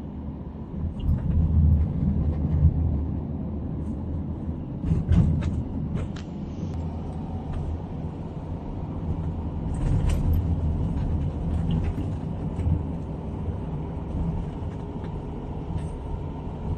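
Car interior noise while driving: a steady low rumble of tyres and engine, with a few short knocks.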